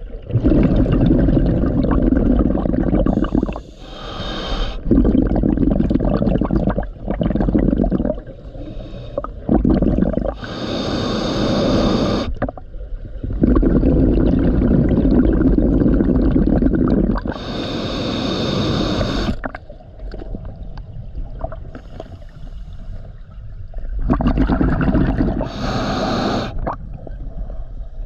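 Scuba diver breathing through a regulator underwater, about four breaths. Each is a short hiss as the breath is drawn in, followed by a longer burble of exhaled bubbles.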